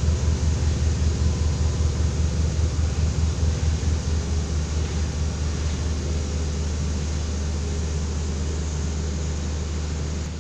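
Single-drum vibratory road roller running, a deep engine hum. For the first four seconds or so it throbs in rapid pulses, then settles into a smooth, steady drone.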